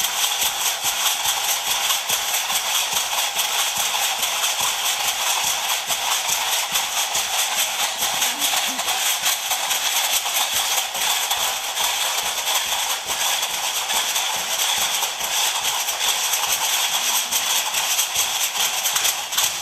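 Stomp-dance shell shakers' leg rattles, worn by women dancers, shaken in a fast, even, continuous rattle as they step.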